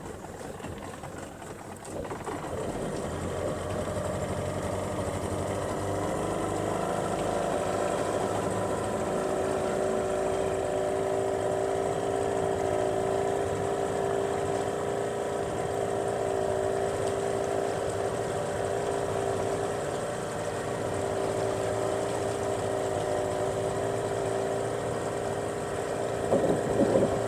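Outboard motor of a small fishing boat running steadily under way, coming up to speed about two seconds in.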